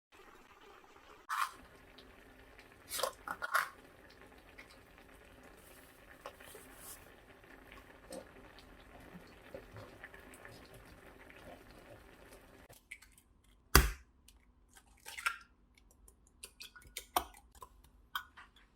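Kitchen sounds: scattered light clinks and taps of dishes and utensils over a faint steady hum, with one sharp knock a little after the middle.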